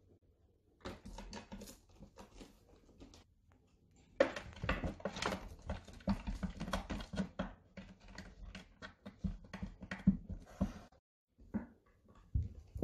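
A kitten and an adult cat play-fighting on a cat tree: a rapid, irregular clatter of claws scrabbling and paws knocking against its posts and platforms. It starts about a second in, is busiest from about four seconds, and ends with a few last knocks near the end.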